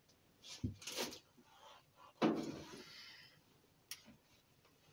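Wooden workshop door with a makeshift inside lock being unlocked and opened. A few light knocks come first, then a sudden loud sound about two seconds in that fades away over about a second, and a short sharp click near the end.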